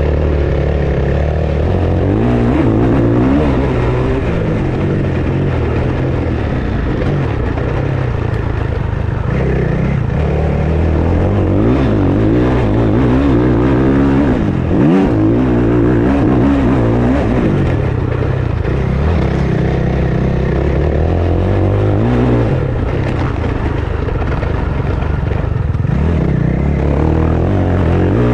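KTM 690 Enduro's single-cylinder engine running as the motorcycle is ridden, its revs rising and falling repeatedly with the throttle and gear changes.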